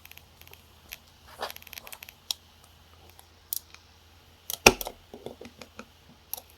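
Small metal clicks and short scrapes of tools working at the conical pins of a tiny travel alarm clock's movement. A sharper, louder click comes just under five seconds in.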